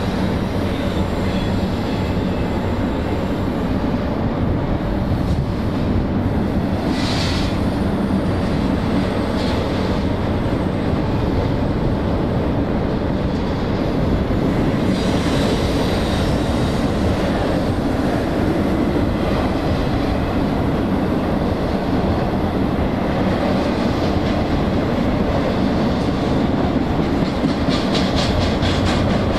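Freight train rolling past: a steady rumble of wheels on rail with a low steady hum, ending in a run of quick regular wheel clicks over rail joints near the end.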